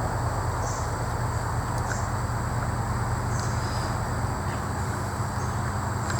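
Steady background hum and hiss with a thin, steady high-pitched tone above it, and a few faint light clicks.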